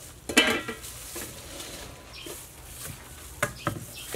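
Large aluminium cooking pot and lid clanking: one loud metallic clang with a brief ring about half a second in, then two lighter knocks near the end.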